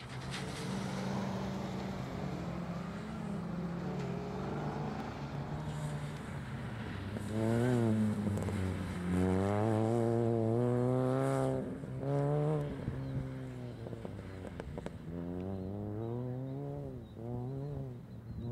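Mini Cooper's four-cylinder engine driven hard around a cone course, its note climbing and dropping in pitch again and again as the driver accelerates and lifts between the cones. It is loudest about eight to eleven seconds in, with its highest rev climbs there.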